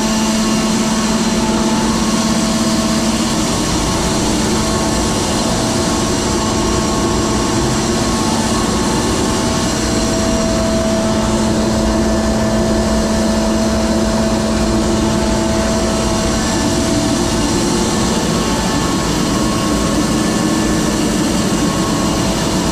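Grain dryer's large fan and burner running: a loud, steady, noisy drone with a constant hum that does not change.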